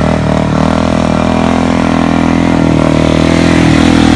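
Suzuki DR-Z400's single-cylinder four-stroke engine running at a steady, even pitch as the dirt bike rides slow circles on sand, getting slightly louder near the end.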